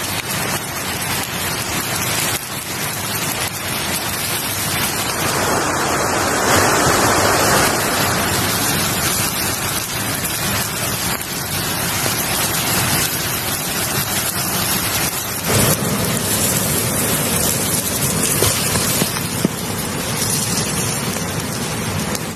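A whole chicken roasting over a wood fire, its fat and juices sizzling in a dense, steady hiss with a few faint crackles.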